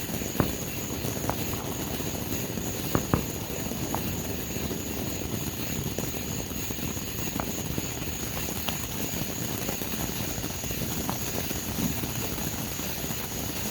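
Fireworks: a steady rushing hiss with scattered sharp pops. The loudest pop comes about half a second in and a close pair about three seconds in.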